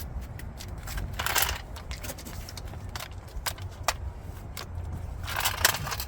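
Loose metal parts such as lug nuts and a socket clinking and scraping as they are handled: scattered clicks, with two short rattling scrapes, one about a second in and one near the end. The impact wrench is not hammering.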